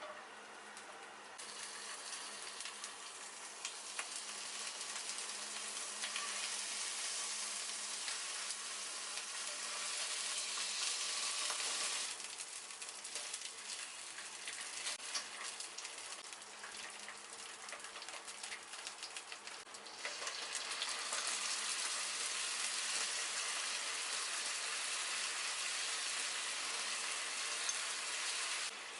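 Food sizzling and crackling in a hot frying pan. The sizzle grows louder in the first few seconds, drops back about twelve seconds in, and returns louder around twenty seconds in, with a faint steady hum underneath.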